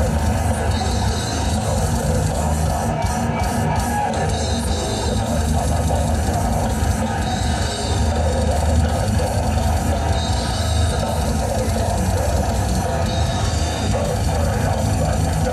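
Death metal band playing live: a continuous wall of distorted guitar and drums at steady full volume.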